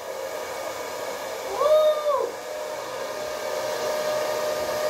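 Bubble Rocket bubble gun's fan motor running with a steady whir as it blows out a stream of bubbles. A short rising-then-falling vocal sound about a second and a half in.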